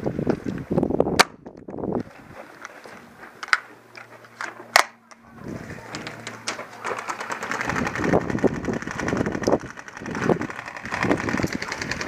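Airsoft guns firing single shots: three sharp cracks, about a second, three and a half and five seconds in, against irregular rustling and scuffing of a player moving.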